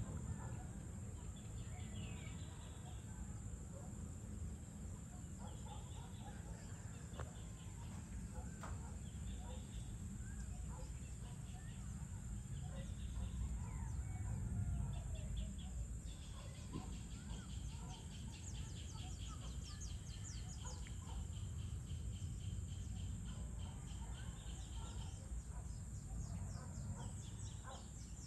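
Outdoor evening ambience: birds chirping and calling again and again over a low, steady rumble. A long, high trill runs from about halfway through to near the end.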